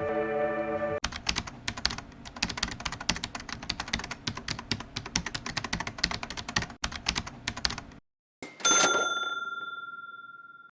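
Rapid computer-keyboard typing clicks for about seven seconds, after a second of music. A single bell-like ding follows and rings out before cutting off abruptly.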